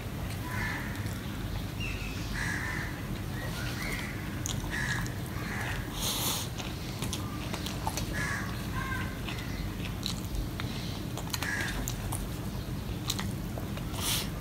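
Crows cawing repeatedly, short calls every second or two, while a person chews and works rice with the fingers on a steel plate, giving scattered wet clicks, over a steady low hum.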